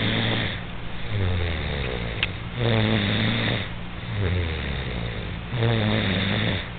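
A young boy snoring through a nose blocked with mucus after three days of fever, a rumbling "hu-lu hu-lu" snore that his mother likens to a motorcycle. It swells with each breath, about every three seconds. A short click about two seconds in.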